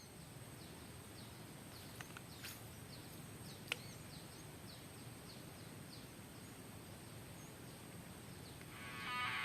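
Faint outdoor ambience: a bird gives a long series of short, falling chirps, about two a second, over a low hiss and a thin, steady high tone. There is a sharp click a little under four seconds in, and guitar music fades in near the end.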